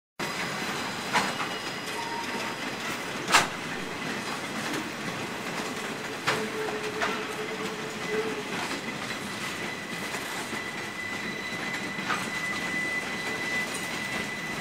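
Railroad cars rolling past at close range: a steady rumble of steel wheels on rail, broken by a few sharp, irregular clanks from the wheels and couplers. A thin, high wheel squeal comes in about eight seconds in and holds.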